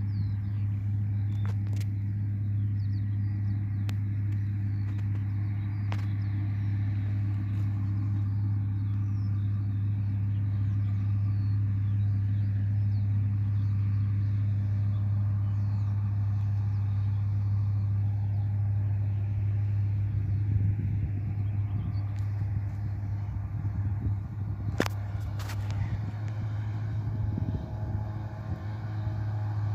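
Fendt 409 Vario tractor's four-cylinder diesel running at a steady speed while mowing with a Pöttinger mower: a constant low drone. An irregular low rumble joins it in the last ten seconds, with a couple of sharp clicks near the end.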